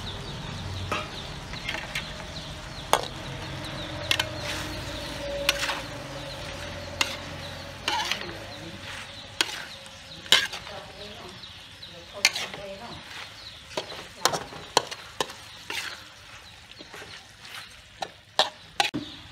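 Metal spatula scraping and knocking against a wok at irregular intervals as catfish pieces and holy basil are stir-fried, with a light sizzle of hot oil underneath. The knocks come closer together near the end.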